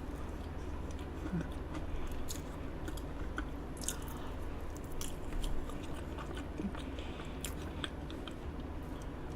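A person chewing and biting food close to the microphone, with scattered small clicks and smacking mouth sounds.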